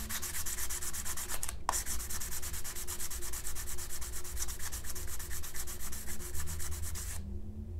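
Edge of a clear plastic panel rubbed in quick, even strokes along a fine-grit sanding stick, with a brief break about one and a half seconds in and stopping near the end. This is the final polishing stage that smooths the already sanded edge.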